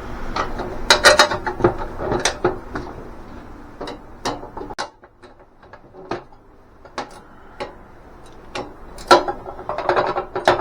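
Ratchet wrench clicking in short runs, with sharp metal clinks, while tightening nuts onto the bolts of a cart's caster wheels. The clicks are densest about a second in and again near the end.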